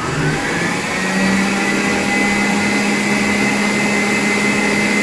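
Electric stand mixer motor spinning up, rising in pitch over the first second, then running steadily at speed with a hum and whine. It is whisking chilled stabilized whipped cream toward stiff peaks.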